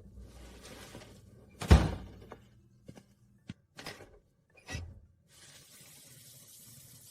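Sound effects: one loud sharp thud about two seconds in, then several lighter knocks and clicks, then a faint steady hiss.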